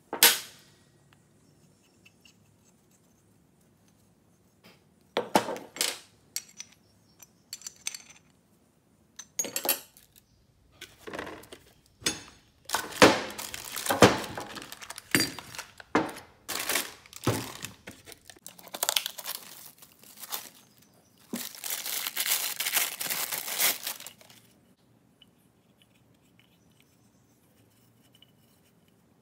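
A sharp metal clatter at the start as an open-end wrench is set down. Then irregular bursts of plastic bags crinkling and rustling while fuel filter parts are handled, the longest a steady crinkle of about two seconds late on.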